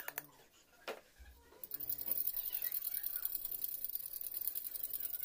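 Flour being sifted through a stainless-steel mesh drum sieve: a few sharp taps on the sieve, then from about a second and a half in a fast, steady, high-pitched rattle as the sieve is worked and the flour passes through the mesh.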